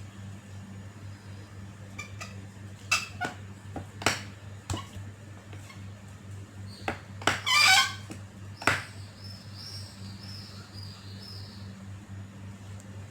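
Birds calling over a steady low hum: a loud, short pitched squawk about halfway through, then a run of high chirps. Scattered light knocks come here and there.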